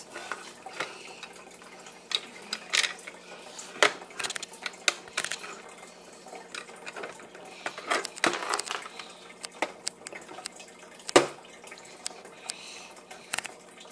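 Hard plastic toy pieces handled on a plastic high-chair tray: scattered clicks, taps and knocks, the loudest about eleven seconds in.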